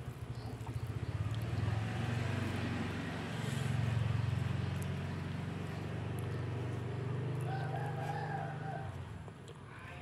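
A rooster crowing, one drawn-out call about eight seconds in, over a steady low rumble.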